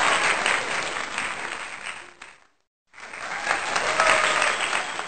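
Applause: many hands clapping. It fades out about two seconds in and, after a short silence, starts again.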